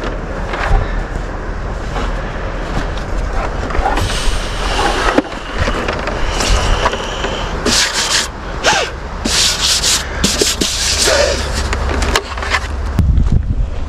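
Rubbing, rustling and scraping as a Starlink satellite dish and its coiled cable are handled and lifted out, the dish's plastic and the cable rubbing against each other. The scrapes come in irregular bursts, busiest in the middle of the stretch.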